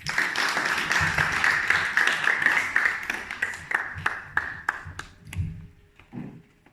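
Audience applauding. The clapping is dense at first, then thins to scattered single claps and dies away about six seconds in.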